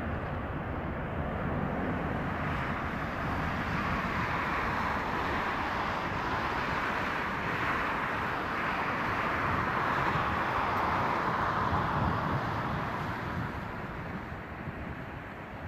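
Boeing 777's twin jet engines at takeoff thrust during the takeoff roll: a steady jet noise that peaks in the middle and fades over the last few seconds as the airliner pulls away.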